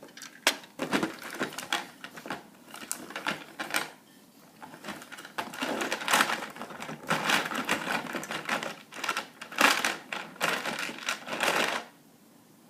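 Small plastic toy parts clicking and rattling as they are handled, in irregular runs of quick clicks with a couple of short pauses.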